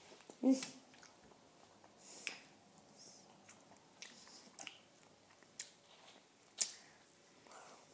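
A child chewing and eating French fries, with a scattering of short, sharp mouth clicks and smacks.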